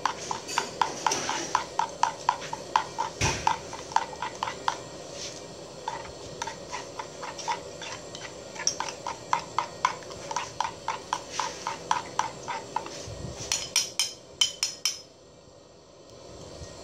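Metal spoon stirring a red sauce in a stone mortar, clinking against the stone several times a second. Near the end comes a quicker run of sharper taps, then the stirring stops.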